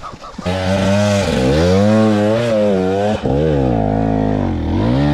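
Dirt bike engine coming in abruptly about half a second in and revved up and down several times, rising and falling in pitch, as the bike pulls away up a steep trail.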